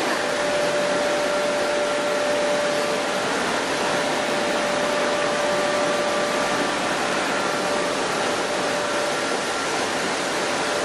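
Chili powder milling machinery running steadily: a constant rushing noise with a faint steady whine through it.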